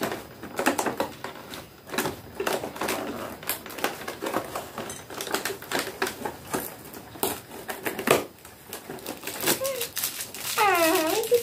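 Cardboard and paper packaging being handled and opened: a run of small irregular crinkles, clicks and rustles. Near the end a girl's voice comes in with a drawn-out gliding sound.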